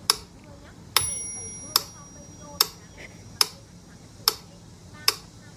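Sharp ticks at a steady pace of a little over one a second, one of them about a second in followed by a short bell-like ring.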